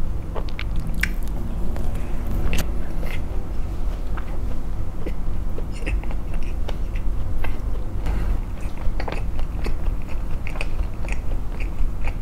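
Close-miked biting and chewing of a flaky pastry, with many small, crisp crackles from the crust scattered throughout, over a steady low hum.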